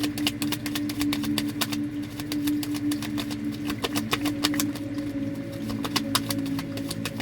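Tarot cards being shuffled and handled, making rapid, irregular clicks and snaps, over a steady low drone of sustained tones.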